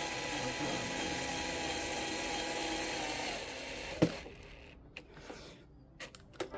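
A small cordless power drill/driver runs steadily for about three and a half seconds, driving a screw, then stops. A sharp click comes about four seconds in, followed by a few small clicks.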